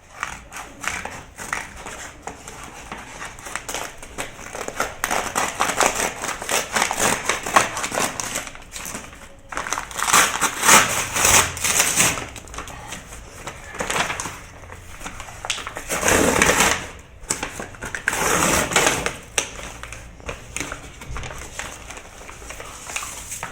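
A cardboard box being handled and opened: a run of scratchy rustles, clicks and crinkles, with longer, louder rasping stretches about halfway through and twice more later on.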